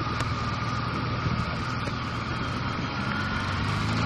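Honda ST1300 Pan European motorcycle's V4 engine running steadily under way at low speed, with road and wind noise; it grows slightly louder toward the end as the bike picks up speed.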